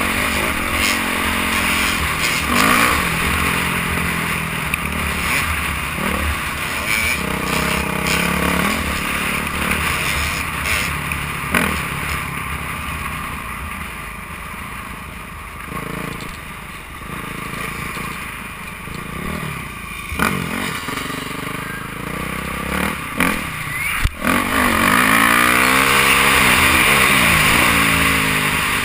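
Dirt bike engine running under way, its pitch rising and falling with throttle and gear changes, quieter for a stretch in the middle, heard from a helmet-mounted camera with wind noise. A single sharp knock late on.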